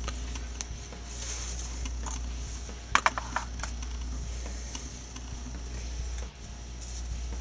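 Light clicks and taps of small objects being handled on a workbench, with a quick cluster of sharp clicks about three seconds in, over a steady low electrical hum.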